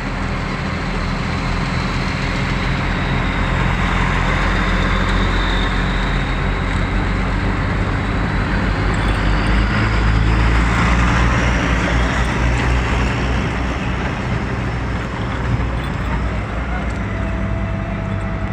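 Large diesel engine of heavy machinery running steadily under load, with a thin high whine above its low drone; it grows a little louder partway through, then eases back.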